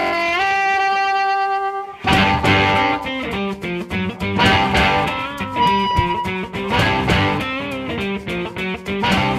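Background music: electric guitar playing over bass with a steady beat, opening with a held, bending note that gives way to the rhythm about two seconds in.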